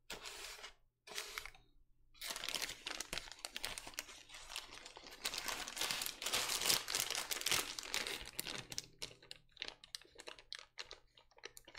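Plastic packaging crinkling as it is handled: two short rustles, then a long stretch of dense crinkling that thins into scattered crackles near the end.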